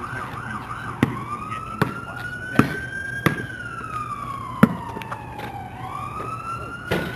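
An emergency vehicle siren, a fast warbling yelp that switches about a second in to a slow wail rising and falling in pitch. Several sharp knocks sound over it.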